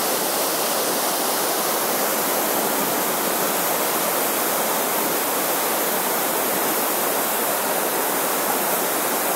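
Waterfall: a large volume of river water pouring over a concrete dam, a steady rushing noise without a break.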